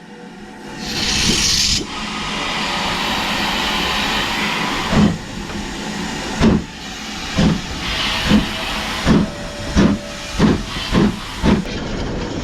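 Ivatt steam locomotive No. 46447 pulling away: a burst of steam hiss, then steady hissing, then exhaust chuffs starting about five seconds in and coming faster as it gathers speed.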